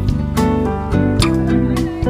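Background music: a melody of pitched notes over a steady beat.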